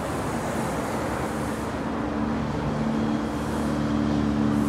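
Vehicle rumble with a steady low engine hum that sets in about two seconds in and grows louder.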